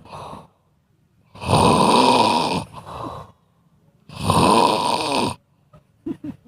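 Squirrel snoring: two long, loud snores about two and a half seconds apart, each followed by a softer breath.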